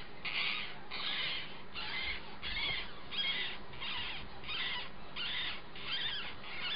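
Baby rabbit kits squeaking: short high-pitched calls repeated about twice a second.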